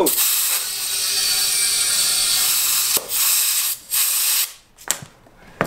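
Compressed air from a shop air hose rushing into a tubeless go-kart tire through the valve to seat its bead: a loud steady hiss for about three seconds, then two shorter bursts. Two sharp snaps follow near the end.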